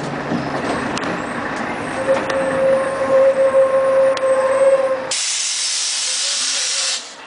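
Inside a 1996 Scania CN113CLL city bus under way: a steady whine, the audible rear axle this bus was known for. About five seconds in, a loud hiss of compressed air, typical of the bus's air brakes, starts suddenly and cuts off about two seconds later.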